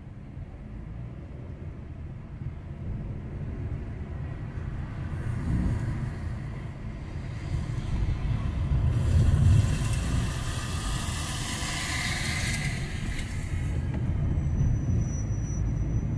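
Car driving on city streets, heard from the moving car: a steady low rumble of engine and road, with a hiss that swells for several seconds midway and then eases off.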